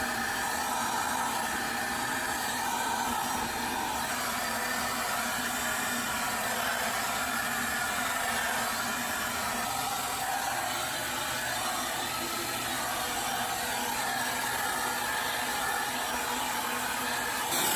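Dyson Animal vacuum cleaner running steadily and a little loud, its suction note shifting slightly as the nozzle works over the dust-clogged refrigerator condenser coils.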